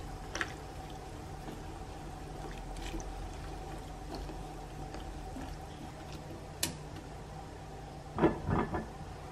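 Pomelo peel strips being stirred with chopsticks in liquid in a pot, over a steady low hum. Near the end a glass lid clatters onto the pot in a few quick knocks, the loudest sound here.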